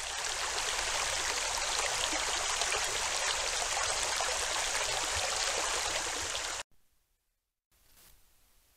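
Shallow rocky creek rushing and rippling over stones, a steady, even water sound that cuts off abruptly near the end.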